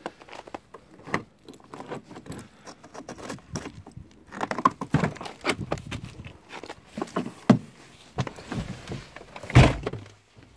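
Keys jangling and clicking, with rustling and knocks as the door of a snow-covered 1988 Volkswagen Jetta is opened and someone gets into the seat. A single heavy thump near the end is the loudest sound. The engine is not yet running.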